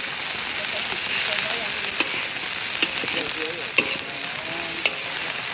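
Food frying in hot oil: a steady sizzle with a few sharp pops, one about two seconds in and others near three, four and five seconds.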